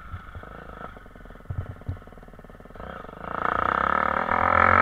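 Motocross bike engine heard from the rider's camera, running at low throttle with a couple of low thumps, then opening up and getting much louder about three seconds in as the rider accelerates toward a jump.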